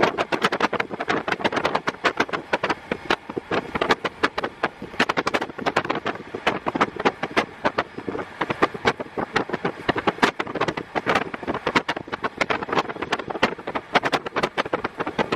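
JR East KiHa 48 diesel railcar under way, heard through an open window: the diesel engine and wheel noise mixed with heavy wind buffeting that crackles irregularly on the microphone.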